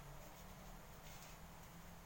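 Near silence: faint steady room hiss with a couple of faint ticks.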